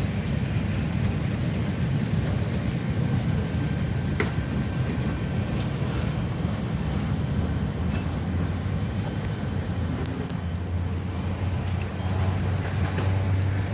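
Freight train rolling away: a steady low rumble of wheels on rail, with a few sharp clicks and a low hum building near the end.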